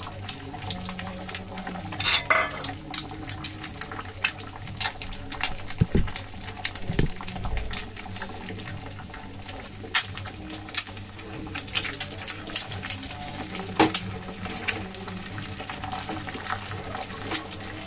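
Beaten egg frying in hot mustard oil in a wok: the oil sizzles with many scattered crackles and pops, and there are a few louder knocks.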